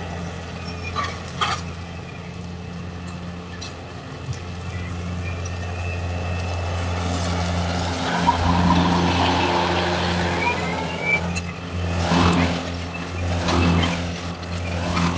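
Zero-turn riding mower running as it crosses a lawn, heard through a security camera's microphone. It grows louder about eight seconds in as it passes close.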